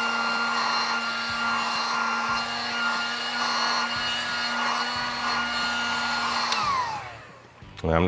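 Handheld heat gun running steadily, a blowing hiss with a motor whine, as it shrinks heat-shrink tubing over a coax connector. About six and a half seconds in it is switched off and the whine falls away as the fan winds down.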